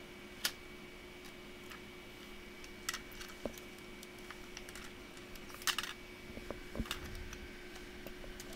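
Scattered sharp plastic clicks and taps from a Toshiba Satellite laptop's casing and parts being handled during disassembly, at irregular intervals, over a faint steady hum.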